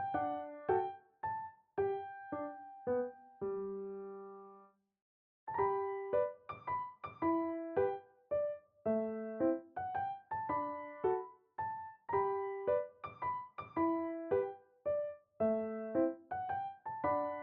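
Background piano music: a light melody of short, plucked-sounding notes, with a brief pause about five seconds in.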